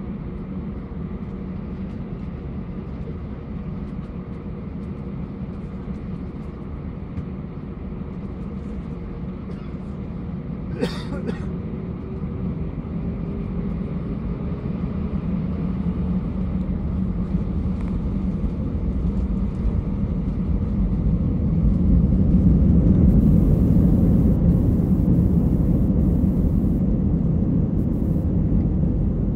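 Cabin noise of an airliner moving on the ground before take-off: a steady low engine hum and rumble that grows louder over the last third. A single sharp click sounds about a third of the way in.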